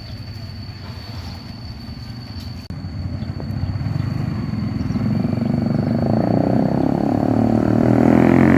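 Vehicle engine running, growing steadily louder from about halfway and climbing in pitch as the vehicle comes close, loudest near the end.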